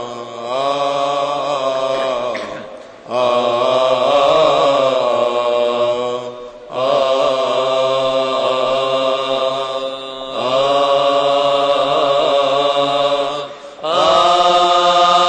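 Coptic liturgical chant sung by male voices in long, held melismatic phrases, each about three seconds, with short breath pauses between them.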